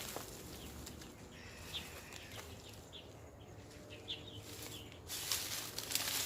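Small birds chirping in short, high, scattered notes, with a rustling hiss that starts suddenly about five seconds in.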